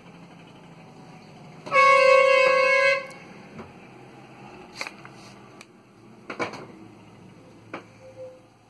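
A single loud, steady horn-like blast lasting a little over a second, about two seconds in, followed by a few soft clicks.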